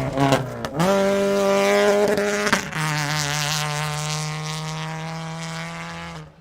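Rally car engine driven hard: it drops off-throttle with crackling pops at the start, revs up sharply about a second in, changes gear with a short break about two and a half seconds in, then holds a steady high note that slowly fades as the car pulls away.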